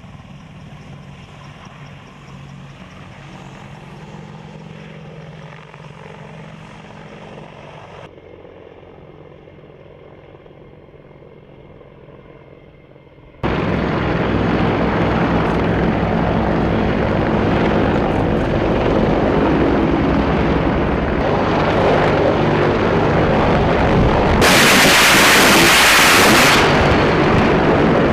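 AH-64 Apache attack helicopter flying, its rotor and engines running steadily. The sound is moderate at first and much louder from about halfway through. Near the end comes a loud burst of weapons fire from the helicopter lasting about two seconds.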